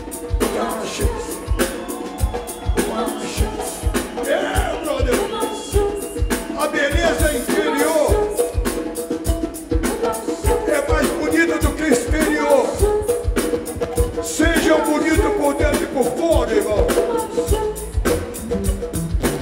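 A live Brazilian soul-funk band. A man sings into a handheld microphone over a drum kit's steady kick-drum beat, with a djembe hand drum played alongside.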